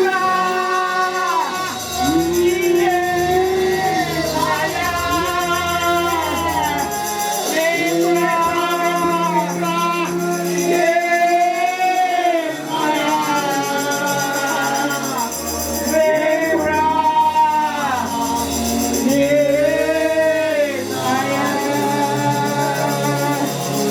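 Worship song: voices singing a melody in long held phrases over band accompaniment, with low bass notes and a steady beat.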